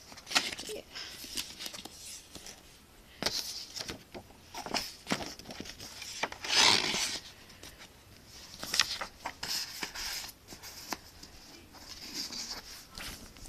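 Paper inserts and a DVD box set's packaging handled: rustling and sliding paper with scattered clicks and taps, and one longer, louder rustle about halfway through.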